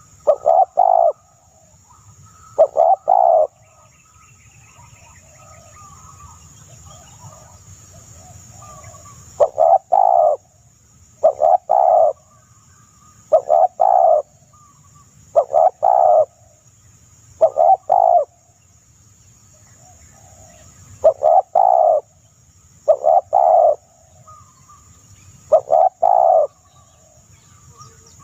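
A dove cooing: short, loud, low coo phrases repeated about every two seconds, with a pause of several seconds early on, over a steady high-pitched insect-like hiss.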